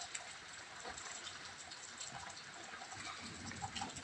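Rain falling steadily, a soft pattering with scattered drips and taps.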